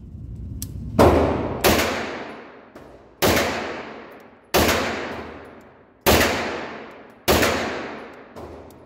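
Six single 9mm shots from a Grand Power Stribog with no muzzle brake, fitted only with its stock thread protector. The first two come close together, the rest about a second and a half apart, and each rings out in the echo of an indoor range.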